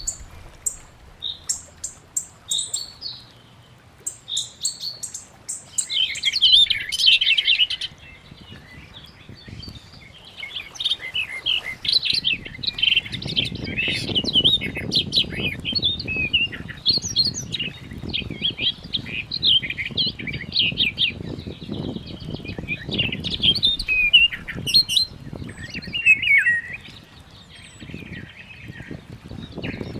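Many birds chirping and chattering: scattered high chirps at first, then a dense, busy chorus of calls from about six seconds in. A low rushing noise sits underneath from about thirteen seconds in.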